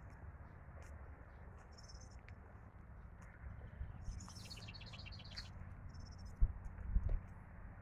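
Small songbirds chirping, a short high call repeated every couple of seconds, with a fast trill of rapid notes in the middle. Two low thuds near the end, footsteps on the path.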